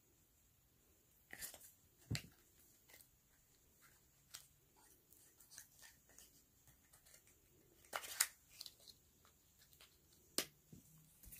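Faint, scattered clicks and rustles of small makeup items being handled, with a few sharper clicks such as caps or cases, against near silence.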